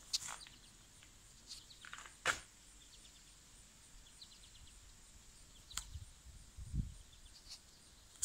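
Quiet outdoor ambience with faint, short bird chirps, a few scattered sharp clicks and knocks, and one low thump about two-thirds of the way through.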